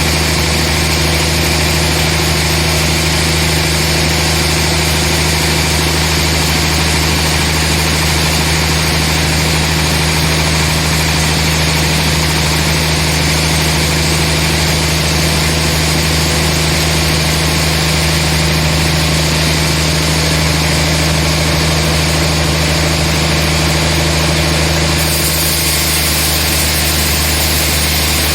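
Sawmill machinery running steadily with an engine-like drone. The drone stays even, with no distinct cuts or knocks, and its character shifts slightly near the end.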